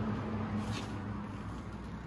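The KTM 1290 Super Adventure S's 1301cc V-twin idling, a steady low rumble.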